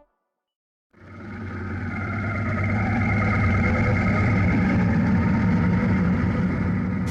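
Motorcycle running steadily on the road, engine hum and wind noise as picked up by an on-board camera, fading in about a second in after a moment of silence.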